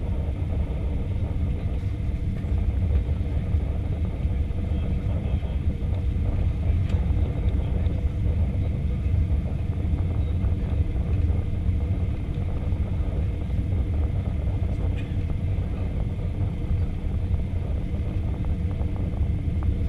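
Airbus A320 cabin noise on the approach: a steady low rumble of engines and airflow heard through the fuselage, with a faint steady hum above it.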